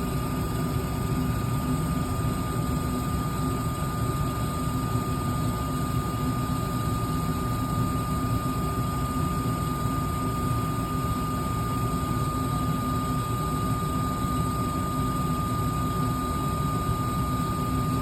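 Gas furnace running with its burners firing and the blower disconnected: a steady mechanical rush with a constant high whine, as the furnace heats up toward the high limit switch's trip point.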